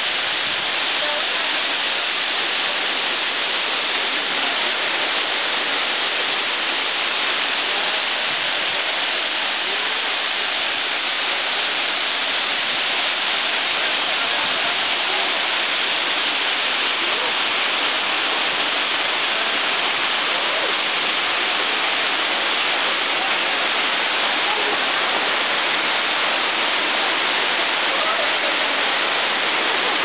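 Tall waterfall pouring into its plunge pool: a steady, unbroken rush of falling water.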